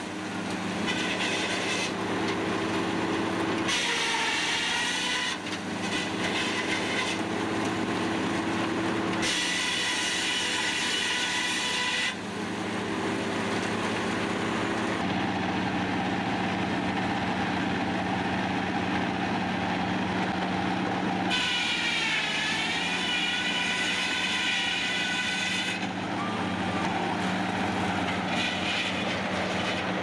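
Sawmill circular saw and its drive running with a steady hum, rising into a high whine in several stretches as the blade cuts through a log; one whine dips in pitch partway through a cut.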